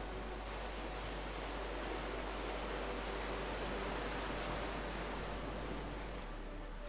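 Steady wash of ocean-surf ambience with a faint held tone underneath.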